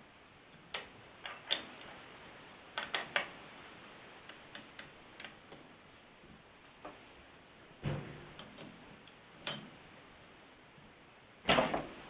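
Scattered light metal clicks and clinks of the clutch tool being fitted to and worked on the Husqvarna 240 chainsaw's clutch, with a louder clatter near the end.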